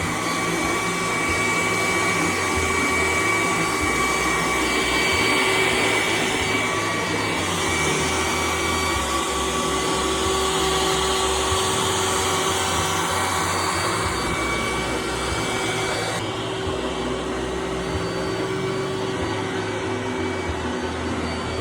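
Roomba robot vacuum running: a steady motor whine over brushing noise, brighter in the middle and duller after about sixteen seconds.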